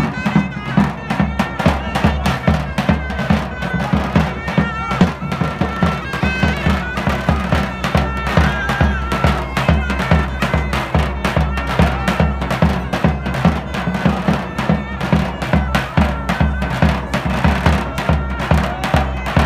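Loud traditional dance music: a shrill reed wind instrument plays a wavering melody over a steady, heavy drum beat.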